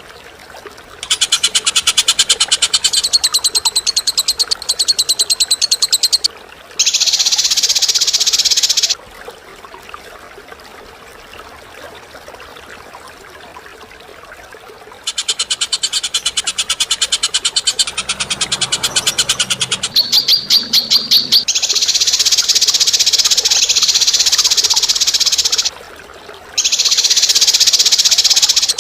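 Bird calls in loud bouts: fast, evenly pulsed trilling that alternates with dense, harsh chattering. There is a pause of several seconds near the middle.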